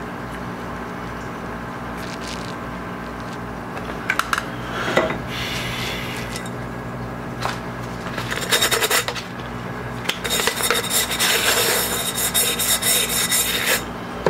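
Cloth rag rubbing and wiping a glass globe in quick scrubbing strokes, cleaning off dust and film before silicone goes on; the scrubbing is loudest and most continuous in the second half. A few knocks of handling come earlier, over a steady hum.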